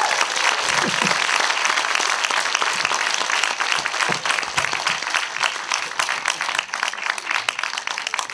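Audience applauding, the clapping slowly dying down and thinning out toward the end.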